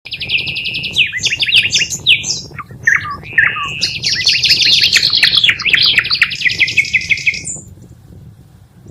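Bee-eaters calling in fast rolling chirps and trills, several overlapping. The calls stop suddenly near the end.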